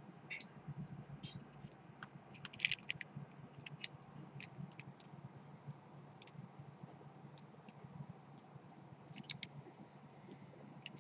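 Faint handling noise of a small clear-plastic USB card reader being turned over in the fingers: a few scattered light clicks over a faint low hum.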